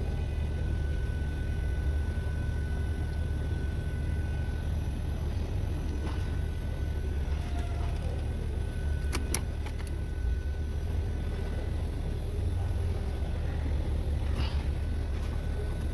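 Steady low rumble of a running car, with a faint steady whine, and two sharp metallic clicks about nine seconds in.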